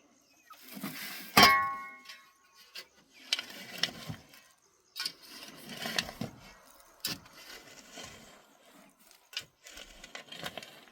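One loud metallic clank that rings briefly, about a second and a half in, followed by scattered knocks, scrapes and clinks of objects being handled.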